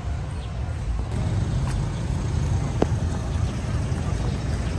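Low, uneven rumble of wind buffeting a handheld phone's microphone outdoors.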